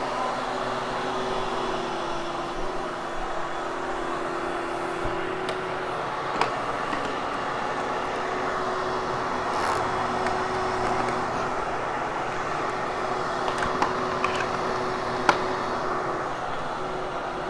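Vacuum cleaner motor running steadily as it is pushed over carpet, its hum shifting slightly in pitch as the load changes, with a few sharp clicks.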